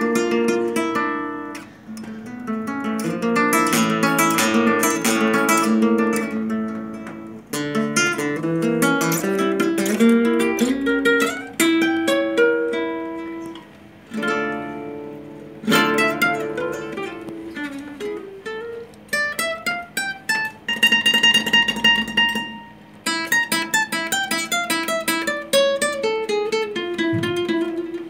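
Acoustic guitar played solo, fingerstyle: plucked notes and strummed chords, with a run of notes climbing about two-thirds of the way in and another run coming down near the end.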